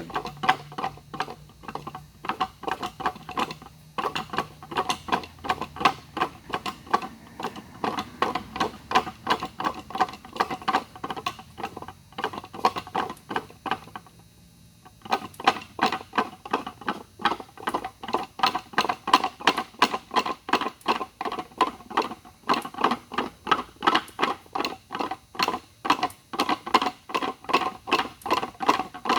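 Repeated knocks from a handmade magic box being twisted back and forth and stopped sharply, roughly three a second, each with the same ringing pitch, and a short pause about halfway. The heavy steel disc inside is carried round by its momentum on each stop, slowly unscrewing the locked lid.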